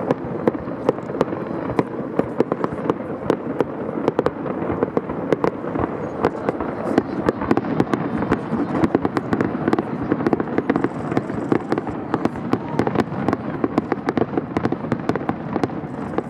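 Fireworks display: a dense, continuous volley of bangs and crackles, several a second, over a steady rumble of shell bursts.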